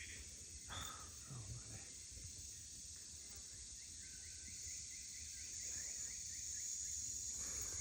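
Steady high-pitched drone of tropical insects, with a quick run of short repeated chirps about four seconds in.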